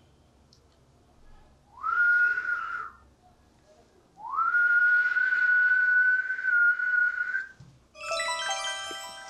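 A man whistling two notes. Each slides up and is then held at one pitch. The first is short and the second is long, about three seconds. Near the end a short burst of bright music tones comes in.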